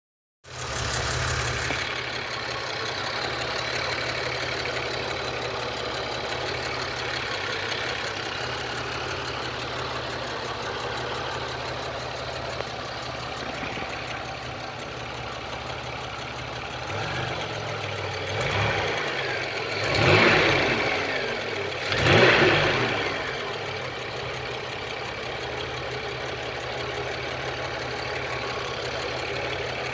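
GM 3.4-litre LA1 pushrod V6 idling with a steady fast ticking, blipped three times in quick succession about two-thirds of the way through. The owner suspects lifter tick.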